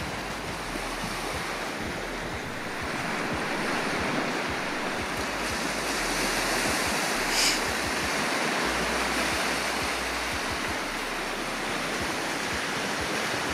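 Sea surf breaking and washing up a sandy beach: a steady rush of waves.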